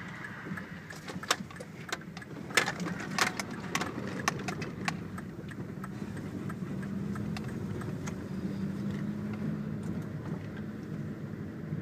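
Heard from inside a car's cabin on a rutted dirt road: a steady low engine and road rumble, with sharp rattles and knocks from the car bumping over the ruts, bunched in the first half.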